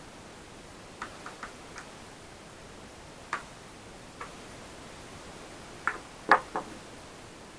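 Scattered light clicks and taps of small parts and tools being handled on a laptop during disassembly, over a steady hiss. Three sharper clicks come close together about six seconds in.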